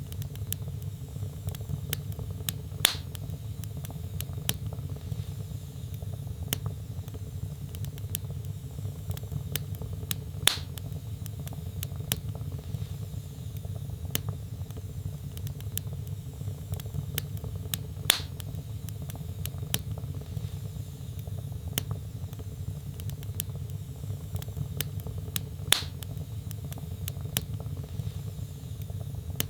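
Wood fire burning in a fireplace: a steady low rumble of flames with constant small crackles, and four louder pops from the burning logs, evenly spaced about every seven and a half seconds.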